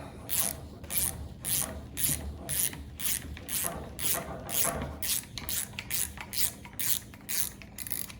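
Milwaukee 2-in-1 lineman's insulated ratcheting box wrench backing out a lag screw, its ratchet clicking in a short rasping burst about twice a second as the wrench is swung back and forth. The ratchet has large, coarse gears, built for torque rather than smoothness.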